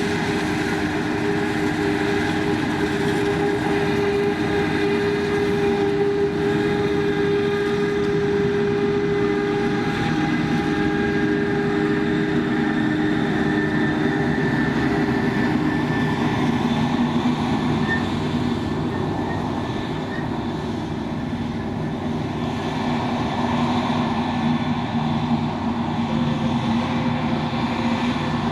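Krone BiG X 1180 forage harvester running steadily: a heavy engine drone with steady whining tones whose pitch shifts lower about halfway through.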